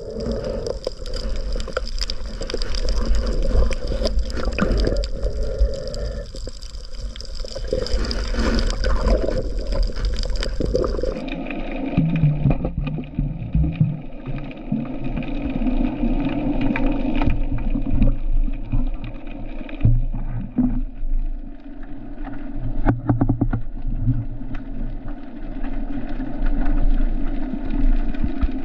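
Muffled underwater water noise, sloshing and gurgling against the camera housing, with a steady hum underneath. The sound changes abruptly about eleven seconds in.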